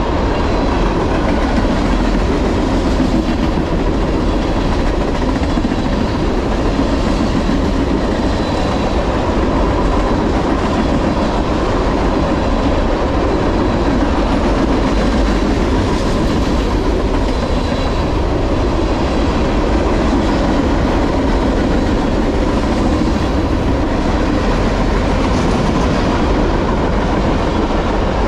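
Long freight train of open-top trash container cars passing close by: a steady, loud rumble and rattle of steel wheels on the rails, with a faint steady whine above it.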